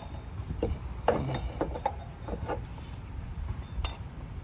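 Light clinks, scrapes and knocks of a new water pump being worked into place on the engine, with a sharp tap near the end.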